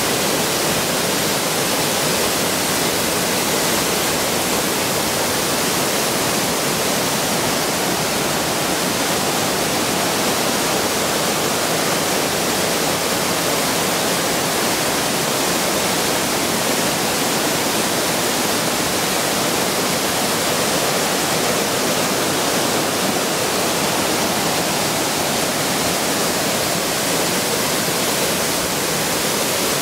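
Rushing water of a mountain stream, a steady, even rush with no change.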